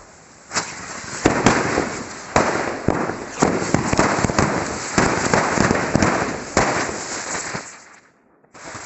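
A square of chitput firecrackers going off together: a dense crackle packed with many sharp bangs, dying away about eight seconds in.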